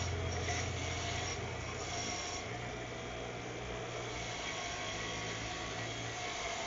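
Wire brush scrubbing a metal dirt-bike footrest, a steady rasping scrape that cleans off rust and old paint.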